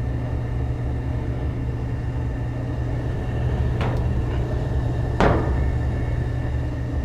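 Gas furnace running with a steady low rumble and a faint steady high tone, broken by two sharp knocks about four and five seconds in.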